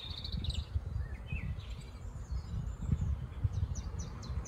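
Small birds chirping in short calls over a steady low rumble: a quick trill at the start, a few rising chirps about a second and a half in, and a run of rapid high notes near the end.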